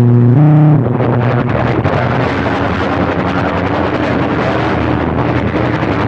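Cobra CB radio receiving a transmission. For the first second its speaker plays a few steady electronic tones that step in pitch. Then comes a rough, crackling hiss of noisy received signal.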